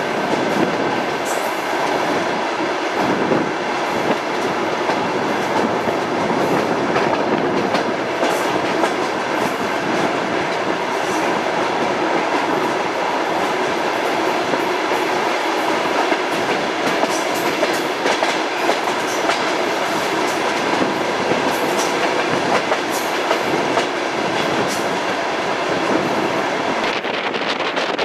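Steady running noise of a moving passenger train heard from inside the coach, with scattered clicks of the wheels over the rails; the sound changes character briefly near the end.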